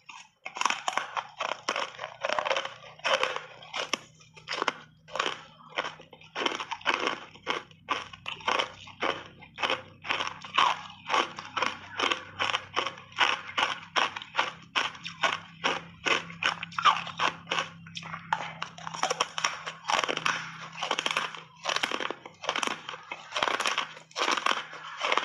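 Hard ice bars being bitten and chewed close up: a steady run of sharp, dry crunches, about two to three a second.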